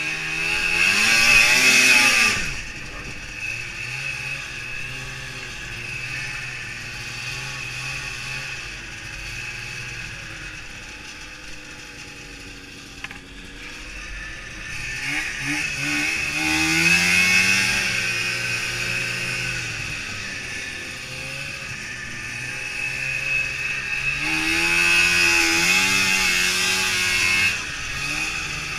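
Two-stroke Ski-Doo snowmobile engine heard from the rider's seat, revving up three times (about a second in, about halfway through, and near the end) with the pitch rising and falling, and running lower and steadier in between. A rushing noise swells with each burst of throttle, and there is a single sharp click a little before halfway.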